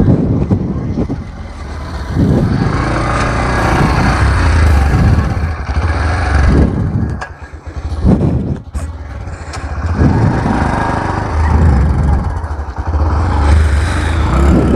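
Motorcycle engine running close by, revving up and easing off several times as it pulls away.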